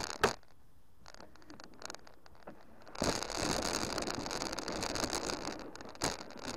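Lawnmower with a couple of sharp knocks at the start, then from about three seconds in a steady noise of the mower running over the lawn, with another knock near the end.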